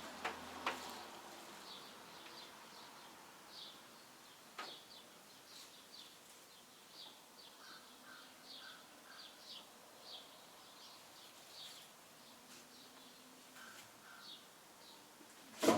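Small birds chirping steadily in the background, with a few light knocks early on and a louder clunk right at the end.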